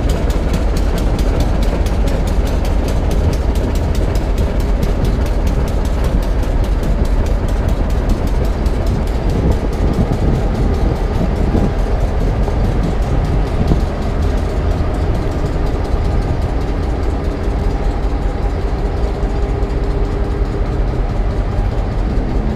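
Diesel engines of a passenger train running: a loud, steady low rumble that does not change.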